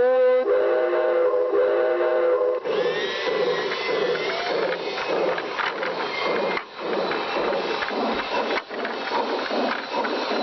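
Train whistle sounding a steady chord of several tones for about two and a half seconds, giving way to a dense, noisy clatter that continues to the end.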